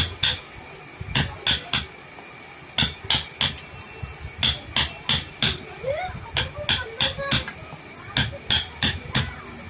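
A hammer striking again and again in woodworking, in quick runs of three to five blows with short pauses between runs.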